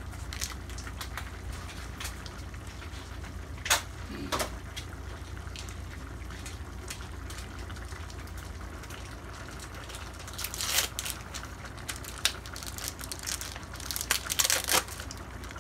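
A pot of cream stew simmering on a gas stove, with irregular bubbling pops and crackles, clustered around four seconds in and again in the last five seconds, over a steady low hum.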